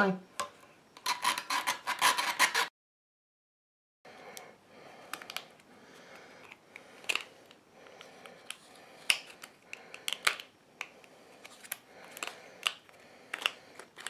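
Hacksaw blade cutting through the thin metal housing of a cheap cable lock in quick, rapid strokes for under two seconds, then cut off abruptly. After a short gap, faint scattered clicks and scrapes of plastic and metal as the cut lock head is worked apart by hand.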